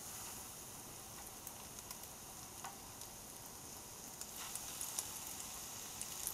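Flour-and-egg coated chicken slices shallow-frying in hot canola oil in a frying pan: a steady sizzle with scattered crackles and pops, growing a little stronger about four seconds in.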